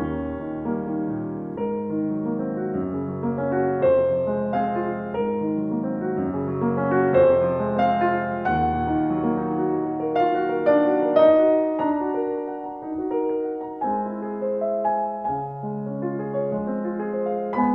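Piano music, a steady run of notes and chords throughout.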